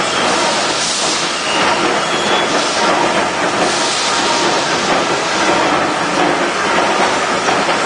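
Heller CNC crankshaft pin milling machine at work: a loud, steady mechanical noise with hissing that swells briefly about one second and four seconds in.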